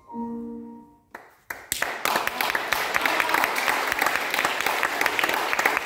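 The closing grand-piano chord of the aria dies away for about a second. A couple of scattered claps follow, then the audience breaks into steady applause.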